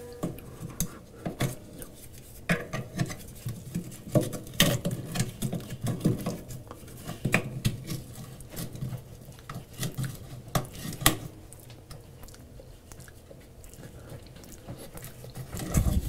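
Irregular metal clicks, taps and scraping as a hand tool pries at the crusted spindle hub in the bottom of a steel washer tub, working a stuck part loose.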